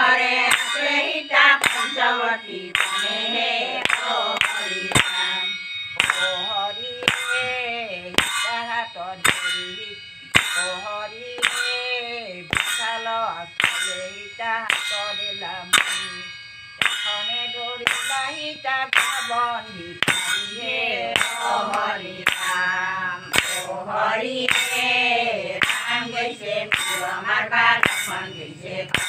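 A group of women singing an Assamese naam, a devotional chant, to hand clapping and small brass hand cymbals struck in a steady beat. The cymbal strikes ring over the voices throughout.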